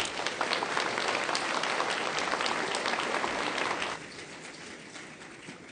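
Audience applauding: dense clapping that drops off sharply about four seconds in, leaving a faint tail.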